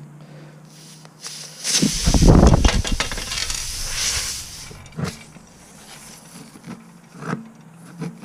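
Air hissing out of a car tire's puncture for about two seconds as the nail is pulled out before plugging, followed by a few light clicks of hand tools.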